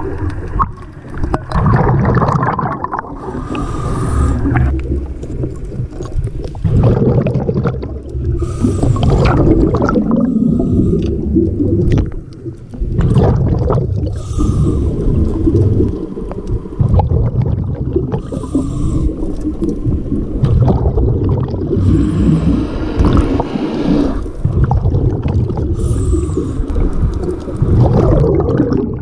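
Underwater sound of a scuba diver breathing through a regulator. Exhaled bubbles gurgle out in a burst every four to five seconds over a steady low rumble of moving water.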